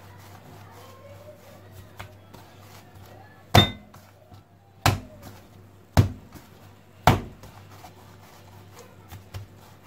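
Log of fekkas dough being knocked down on a granite counter four times, about a second apart, giving sharp thuds; this is done to drive out air trapped inside so the biscuits don't come out hollow. Softer rubbing and ticking from hands rolling the dough between the knocks.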